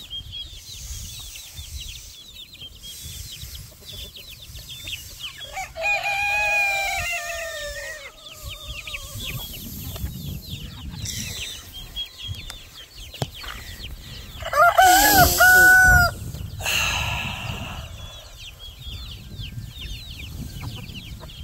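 Chickens clucking, with a rooster crowing twice: a crow falling in pitch about six seconds in, and a louder one about halfway through.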